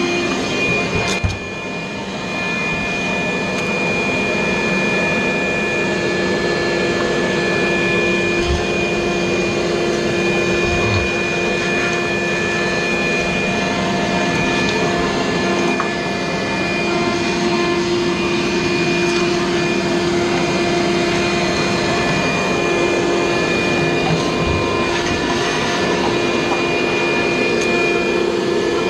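Vacuum cleaner running steadily with a constant motor whine, briefly dipping in level about a second in.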